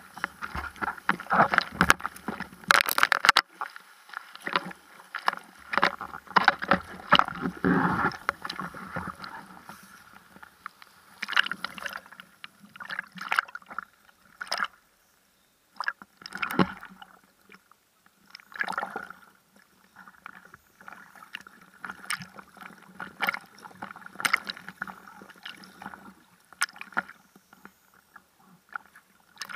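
Ocean whitewash splashing and gurgling around a camera at the water's surface, in irregular splashes with a few sharp knocks. The sound drops out briefly about halfway through.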